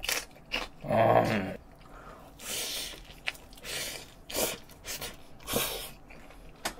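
Close-miked eating sounds: a bite into a raw green chili pepper and chewing, with a short hummed grunt from the eater about a second in and several sharp breaths through the nose and mouth as he takes more food.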